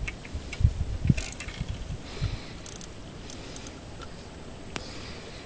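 Fishing reel clicking and ratcheting with the line hooked, plus a few dull knocks about half a second and a second in.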